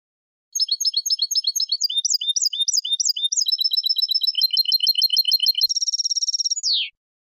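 European goldfinch singing one Málaga-style 'copia' competition song phrase, clean and without faults. It opens with runs of sharp repeated notes, about three a second, quickens into faster chattering notes, then gives a buzzy trill and a final falling note before stopping abruptly.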